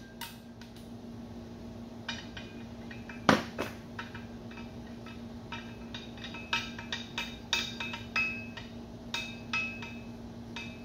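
Irregular metallic clinks and taps of a Torx socket and head bolts against a BMW N20 cylinder head as the bolts are worked out, with one louder knock about three seconds in. A steady low hum runs underneath.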